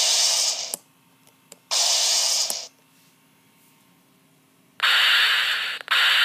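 Recorded sword-swing sound effects played unamplified from a prop sword's old MP3 sound module: noisy hissing whooshes, two separate ones, then two back to back near the end.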